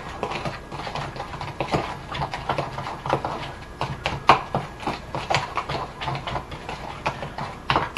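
A utensil clicking and scraping against a small bowl as a dry spice mix is stirred by hand, in irregular taps several times a second.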